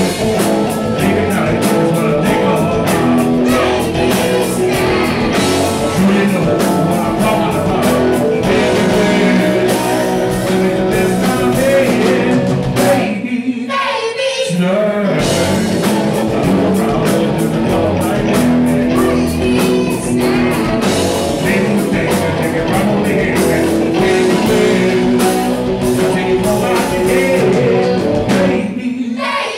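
Rock band playing live with a lead singer: electric guitars, bass guitar, drums and electric violin. Around the middle the band drops out for about a second, then comes back in.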